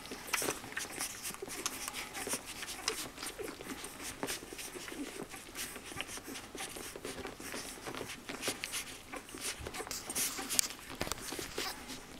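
A litter of young puppies nursing from their mother: a busy run of quick wet sucking and smacking clicks, with a few small squeaks and grunts among them.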